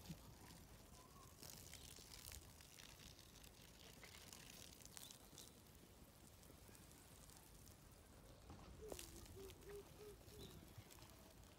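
Near silence with faint rustles and clicks; about nine seconds in, a brief run of about five quick low clucks from a chicken.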